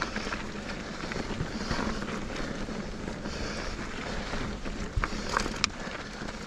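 A full-suspension mountain bike (2021 Giant Reign 29) rolling down a dry, rocky dirt trail, with tyre crunch and wind buffeting the helmet camera's microphone. The bike gives a few sharp knocks and rattles as it goes over rocks, a cluster of them about five seconds in.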